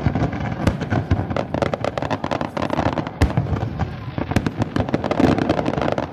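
Fireworks going off in a dense, rapid run of bangs and crackles, with one sharper report about three seconds in.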